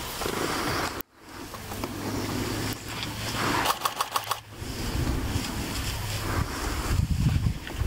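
Vehicle engine idling steadily, with wind buffeting the microphone. The sound drops out briefly about a second in, and a quick run of sharp clicks comes about halfway through.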